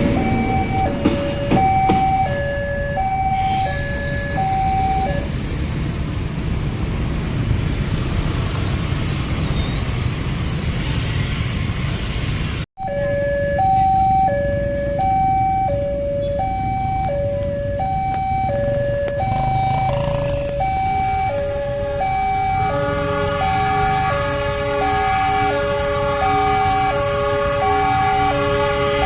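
Railway level-crossing warning alarm sounding a two-tone signal, high then low, over and over, over the low rumble of trains. Near the end a further steady tone made of several notes joins in.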